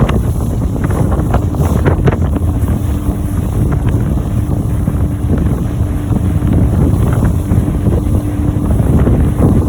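Wind buffeting the microphone over a motorboat's engine running at a steady pitch, with scattered knocks of the hull on choppy water.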